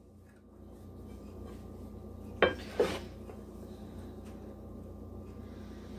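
Two quick knocks of dishes about two and a half seconds in, a ceramic serving platter being handled on the counter, over a faint steady low hum.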